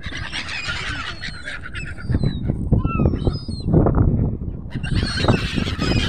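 A flock of gulls squawking over one another as they crowd in for food, the calls thinning out midway and picking up again near the end. Heavy low rumbling buffets the microphone underneath.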